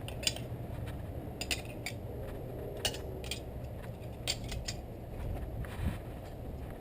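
Steel throwing knives clinking against each other as they are handled: a scattered series of light metallic clicks over a low steady background rumble.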